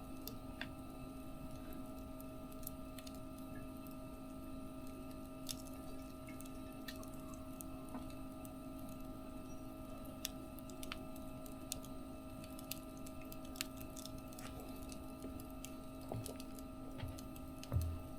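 Wood fire crackling, with scattered sharp pops over a steady low hum.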